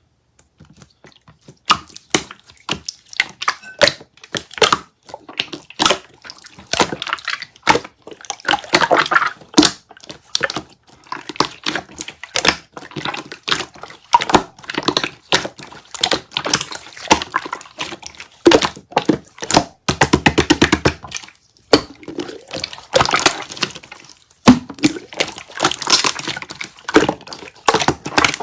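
Water jelly slime being squished and poked: an irregular string of wet clicks, snaps and crackles, with a fast run of tiny crackles about twenty seconds in.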